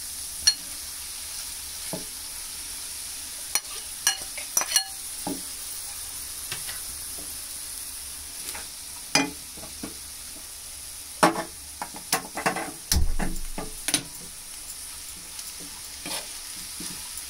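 Cooked rice being stirred and tossed into Schezwan chicken fried rice in a hot frying pan with a steel ladle. A steady sizzle runs under irregular scrapes and clinks of the ladle against the pan, with a heavier knock about 13 seconds in.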